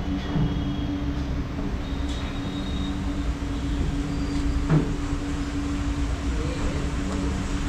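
A steady low rumble with a constant hum over it, and a few faint clicks.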